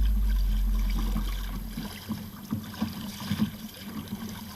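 A loud low hum fades away over the first two seconds, then water laps and splashes against a kayak hull with small irregular knocks.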